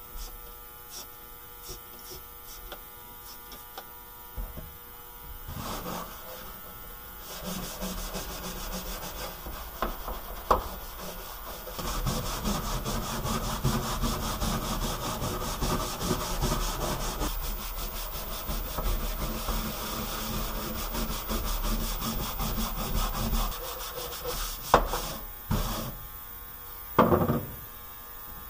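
Scrub pad rubbing rapidly back and forth over a car's steel floor pan wet with cleaner; the scrubbing starts about a quarter of the way in, is heaviest through the middle and stops a few seconds before the end, with a couple of knocks near the end. Under it runs the steady electric hum of an ultrasonic cleaner.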